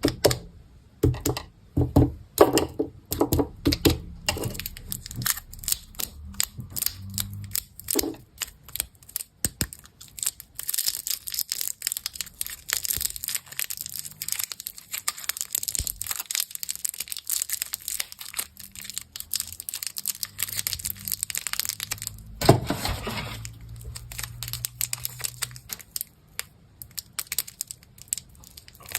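Plastic candy wrappers being crinkled and torn open close to the microphone, a steady run of crackles and rustles. The crackling thickens about a third of the way in, with one louder rustle about three-quarters through.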